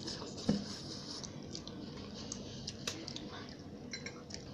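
Faint sounds of noodles being eaten: slurping and chewing, with a soft knock about half a second in and a few small clicks scattered through.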